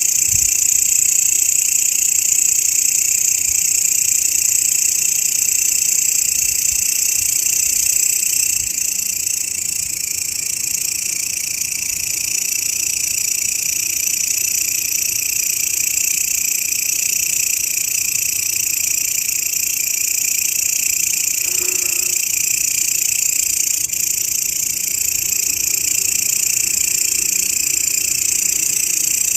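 Grasshopper stridulation: a steady, unbroken high-pitched buzzing.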